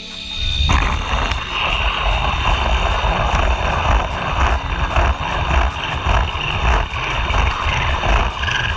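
Cordless impact wrench running with a long socket on a fastener: a continuous hammering rattle under a steady high whine, cutting off near the end.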